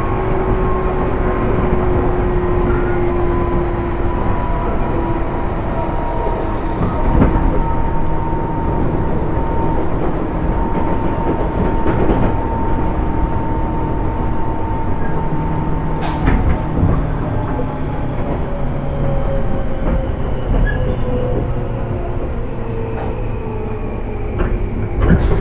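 Onboard running sound of a Tobu 10030 series electric train, heard from inside a motor car: steady wheel and track rumble under a traction motor and gear whine, with a few sharp rail-joint clicks. The whine falls slowly in pitch as the train slows.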